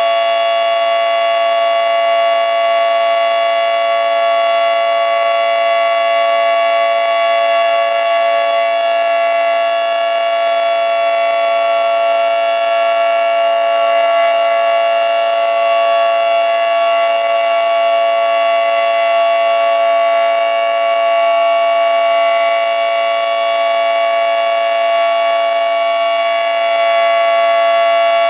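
Federal Signal 2T22 dual-tone rotating outdoor warning siren sounding a loud, steady chord that holds its pitch throughout.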